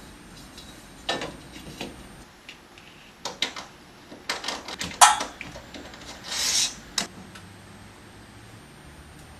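Small objects being handled and set down: a scattering of light knocks and clicks, loudest about five seconds in, then a short scrape.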